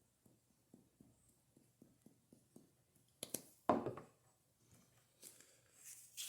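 Garlic powder shaken from a spice shaker over bread: faint quick taps, about four a second. About three and a half seconds in, a louder knock and rustling, with more rustling near the end.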